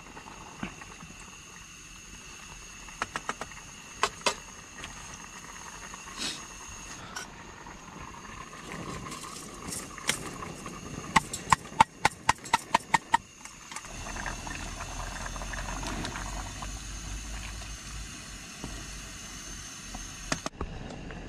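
Portable gas camping stove burner hissing steadily under a cooking pot, with scattered knocks of a wooden spoon and pot, and a quick run of about ten metal clicks just past the middle as one pot is set on another. A low rumble joins in the second half.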